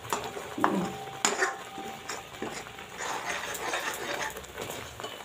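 Metal spoon stirring and scraping thick, simmering rabdi in a metal pan, with a few sharp clinks of spoon on pan in the first second and a half. The milk has been reduced almost to the finished rabdi.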